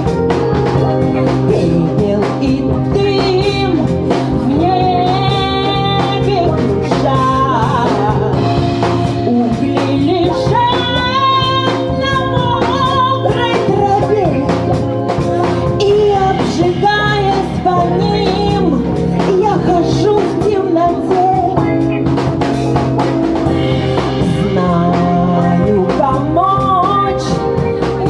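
A live band playing a song, with a woman singing over guitar, bass and drums.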